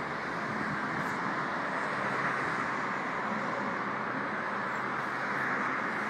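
Steady road traffic noise, an even rush with no distinct events standing out.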